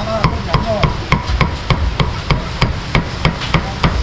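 Meat cleaver chopping roast beef on a round wooden chopping block: a steady run of sharp chops, about three to four a second.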